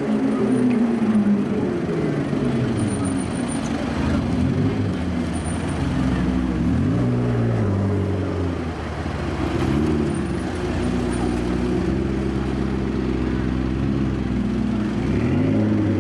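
McLaren twin-turbo V8 supercar engine running at low revs in slow street traffic, its pitch rising and falling a couple of times as it is revved.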